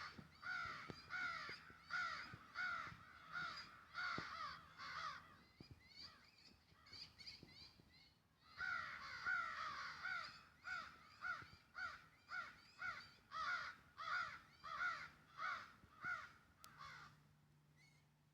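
A young bird calling over and over, short down-slurred calls about two a second. There is a fainter lull about a third of the way in, then a second loud run that stops near the end.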